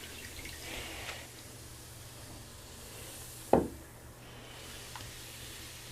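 Bath bomb fizzing in bathwater: a faint, steady hiss. One short, sharp sound with a quickly falling pitch about three and a half seconds in.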